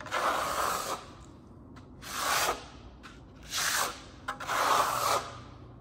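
Steel trowel spreading Marmorino lime plaster across a primed sample board: four scraping strokes, roughly a second and a half apart, with a small click just before the last one.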